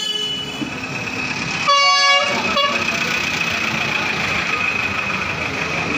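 Bus horn honking about two seconds in, with a short second toot just after, over the noise of the bus engine running close by. A thin steady high whine carries on afterwards.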